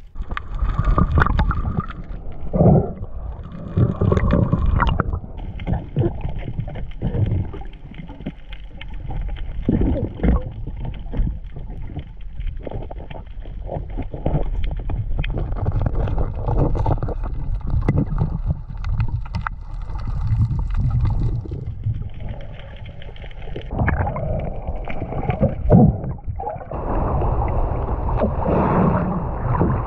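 Muffled underwater noise picked up by an action camera carried by a freediver: low water rushing and gurgling, with scattered clicks and knocks from handling gear against the rock. Near the end, as the diver reaches the surface, it turns into a brighter, steadier hiss of water sloshing at the surface.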